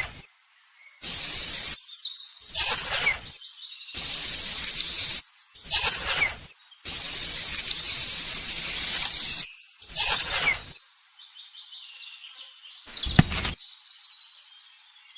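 Short stretches of outdoor sound joined by abrupt cuts: birds chirping faintly, with loud stretches of hissing noise in between. A single sharp knock comes near the end.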